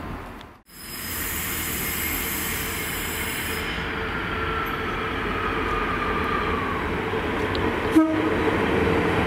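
Diesel multiple unit running in along the platform, its engine and wheels on the rails making a steady noise that grows a little louder as it comes closer. A thin squeal falls slowly in pitch in the middle, and a brief loud note sounds about a second before the end.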